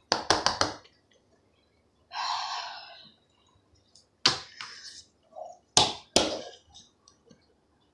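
Hard plastic toy dinosaur clacking against a wooden tabletop in a quick run of knocks. A short hiss follows, then a few more sharp knocks and taps.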